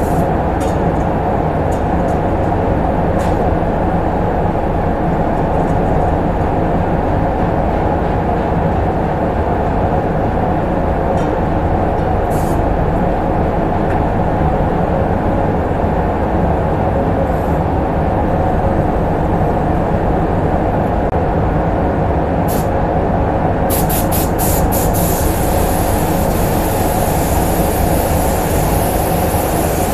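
Spray booth air handling running with a steady, loud rumble. About 24 seconds in, an air-fed paint spray gun gives several short bursts of air, then hisses steadily as paint is sprayed onto the car body.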